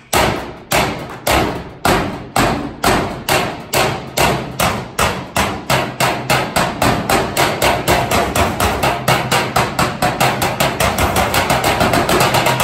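Drumsticks striking galvanized steel trash cans and a snare drum in an even beat that steadily speeds up, from under two hits a second to several a second.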